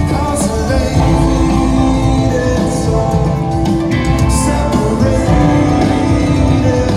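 Live rock band playing with a singer, loud and continuous, heard from within the audience in a large arena.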